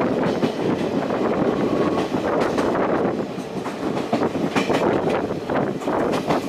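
Steady running noise of a steam-hauled passenger train heard from a coach window: wheels rolling on the rails, with a few sharp clicks from the track around the middle.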